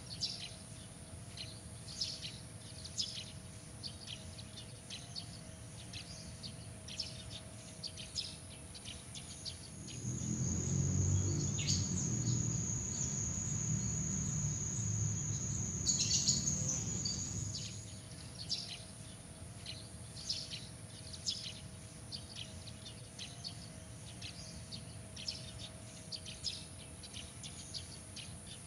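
Night outdoor ambience: insects trilling steadily at a high pitch, with many short chirps scattered throughout. From about ten to eighteen seconds in, the trill shifts to a lower pitch and a low rumble comes in, making that stretch louder.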